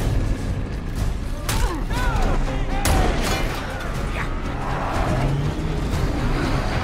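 Dense action-film soundtrack: music over a steady rumble of vehicle engines, with whooping yells and several sharp gunshot-like cracks.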